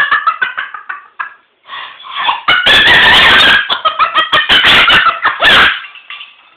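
Moluccan cockatoo laughing: a run of quick, choppy, laugh-like notes that swells into a much louder stretch about two and a half seconds in, with another loud burst near five and a half seconds.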